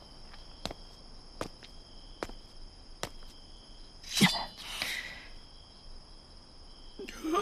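Steady high-pitched chirping of crickets in a night-time chorus. Four sharp clicks come in the first three seconds, and a brief louder sound comes about four seconds in.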